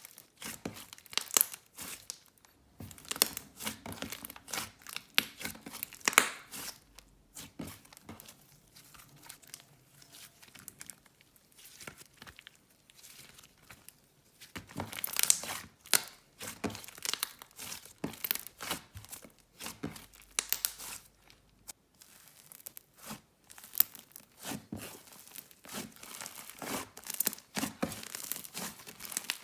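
Hands squishing, stretching and poking a soft orange clay slime, making dense, irregular sticky crackles and pops. The busiest stretches are at the start, around fifteen seconds in, and near the end, with a quieter patch in between.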